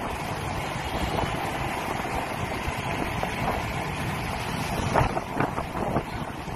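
Wind rushing over the microphone of a moving motorbike, with road and traffic noise beneath it. A few short knocks stand out between about five and six seconds in.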